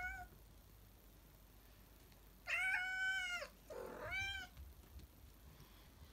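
Domestic cat meowing: the end of one meow at the very start, then a long meow about two and a half seconds in, followed closely by a shorter one.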